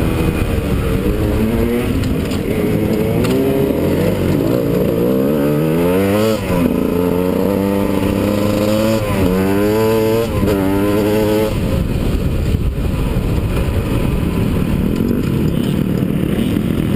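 Enduro dirt bike engine revving up through the gears while riding a rough trail, its pitch climbing and then dropping at each shift several times. For the last few seconds the engine note sinks under a steady rushing noise.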